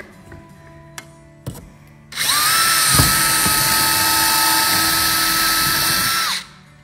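Cordless drill starting about two seconds in and running at a steady speed for about four seconds, drilling through a metal holster bracket into a plastic tool case, then winding down.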